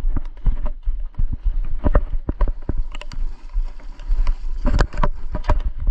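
Footsteps crunching over stones and gravel on a riverbank: rapid, irregular knocks and crunches over a steady low rumble of wind and handling on the microphone.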